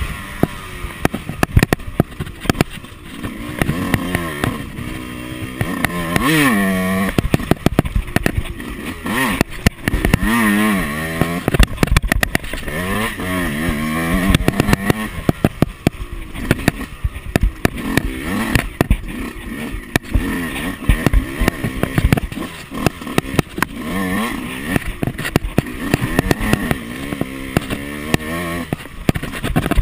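Yamaha YZ125 two-stroke single-cylinder motocross bike engine being ridden, its pitch rising and falling again and again as the throttle is opened and closed through the gears. Frequent sharp knocks and rattles run through it.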